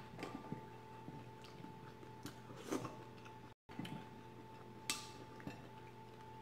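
Quiet eating sounds: a spoon clicking lightly against a ceramic bowl a few times as chowder is scooped, with soft chewing, over a faint steady hum.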